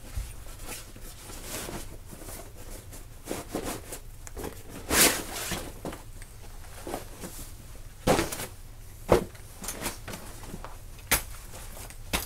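Folding camping chair being handled and opened out: irregular knocks and clacks from its metal frame and rustling of its nylon fabric, the loudest clatter about five seconds in.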